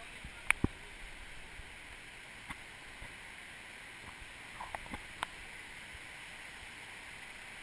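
Steady rush of a nearby rocky river flowing over stones, heard as an even hiss. A few sharp clicks and knocks sit on top, two close together about half a second in and a small cluster around five seconds.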